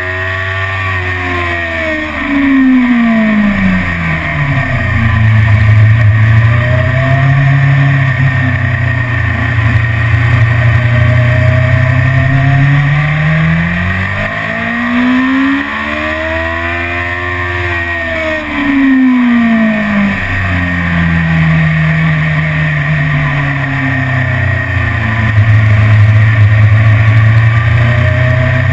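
BMW S1000RR inline-four engine at speed on track with steady wind noise. The engine note drops over the first few seconds, holds steady, climbs and falls again around the middle, then holds steady to the end.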